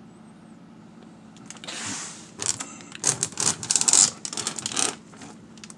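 Clear plastic comic-book bags crinkling and rustling as a bagged comic is handled and pulled off the stack: a run of sharp crackles from about two seconds in until near the end.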